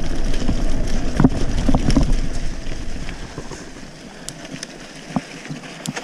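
Riding noise of a mountain bike picked up on a GoPro: a rumbling, noisy haze, loudest for the first three seconds and then easing off, with a few scattered clicks.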